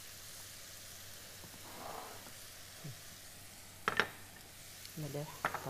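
Spinach and chickpea filling sizzling gently in a frying pan as it is stirred with a wooden spoon, with a single sharp knock of the spoon against the pan about four seconds in.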